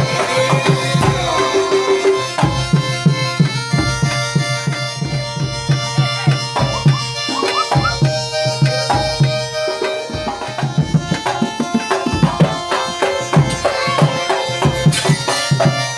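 Traditional music: rapid hand-drum strokes in a fast, even beat under steady held melodic tones.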